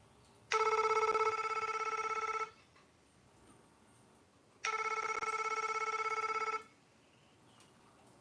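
LG KP500 mobile phone ringtone imitating a telephone bell: two rapidly trilling rings, each about two seconds long, about two seconds apart.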